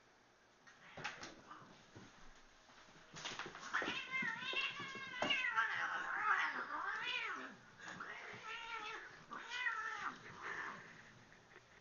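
Cats fighting: drawn-out yowls and screeches that waver up and down in pitch, from about three seconds in until near the end, after a few knocks and scuffles.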